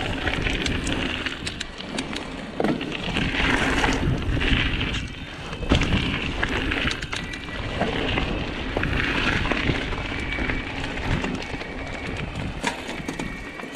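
Mountain bike rolling down a loose gravel trail: tyres crunching and crackling over the stones, with many sharp clicks and rattles from the bike jolting over bumps.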